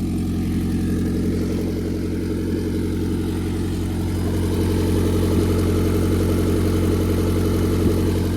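Turbocharged Honda D-series 'mini me' engine (D15B7 block with a D16Y8 VTEC head) idling steadily.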